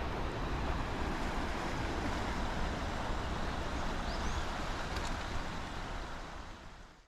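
Steady outdoor rushing noise with a heavy low rumble, typical of wind and surf at a seaside site, fading out over the last second.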